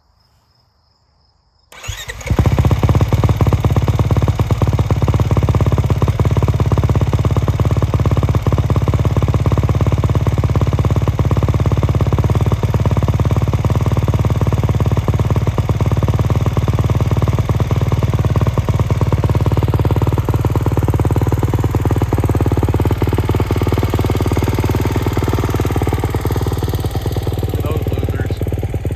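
Kawasaki KX450's single-cylinder four-stroke engine, breathing through a Pro Circuit Ti-6 titanium exhaust, starting about two seconds in and then idling steadily and loudly.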